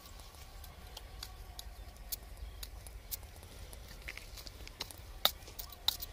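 Dry grass stubble rustling as it is poked through in ditch-edge mud while hunting for snails, with scattered light clicks. Two sharper clicks come near the end: the 'khatkhat' knock that tells a snail shell is there.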